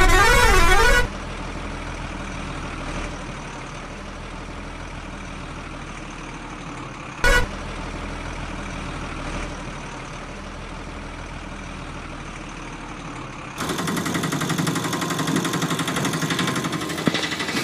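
Vehicle sound effects: a loud warbling horn tune that ends about a second in, then a steady truck engine running, with one short honk about seven seconds in. Near fourteen seconds it switches to a louder, rattling small engine with a fast beat.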